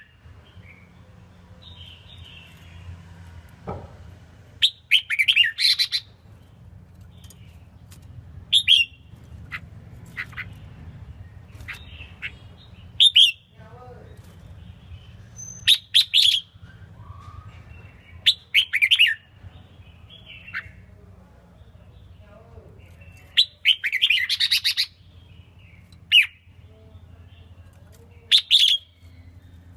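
Red-whiskered bulbul singing short, bright phrases every one to three seconds, over a faint steady low hum. It is an untrained bird of low spirit whose song is calm rather than domineering.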